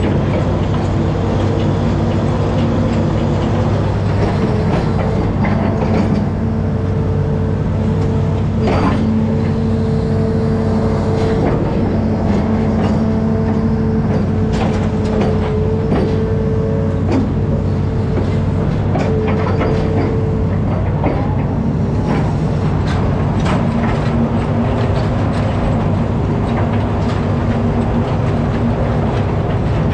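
Hitachi amphibious excavator's diesel engine running steadily under working load, with a hydraulic whine that comes and goes as the arm moves, and a few sharp knocks.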